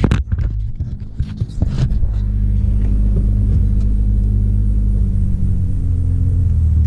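Hyundai Tiburon GT's 2.7-litre V6 engine running steadily, heard from inside the cabin, with a few clicks and knocks in the first couple of seconds. The car stays still against the applied parking brake, a test showing the new parking brake cable holds.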